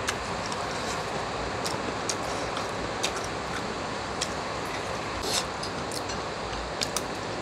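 Heavy rain falling as a steady hiss, with scattered light clicks from chopsticks and eating.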